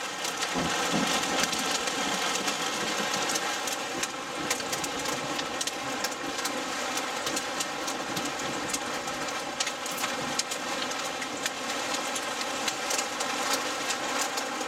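Heavy rain pelting a car's roof and windshield, heard from inside the cabin, steady throughout, with many sharp scattered clicks of small hailstones striking the car.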